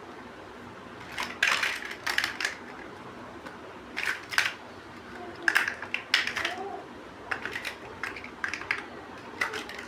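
Plastic building bricks clicking and snapping as they are handled and pressed together, in short bursts of several clicks every second or two.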